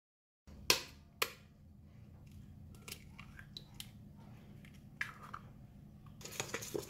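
A spoon and an egg clicking and tapping against a stainless-steel mixing bowl as the egg is cracked with the spoon's edge: two sharp clicks about a second in, then lighter taps and a quick cluster of clicks near the end, over a steady low hum.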